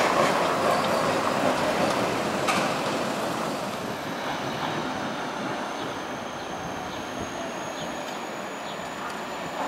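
A tram running on its rails, the rolling noise loudest at first and easing off over the first few seconds, with a few faint clicks. From about four seconds in, a faint high-pitched steady whine comes in above the rolling noise.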